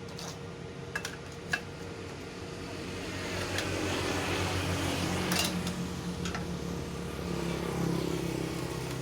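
A low engine hum that swells louder through the middle for a few seconds, with a few light clicks.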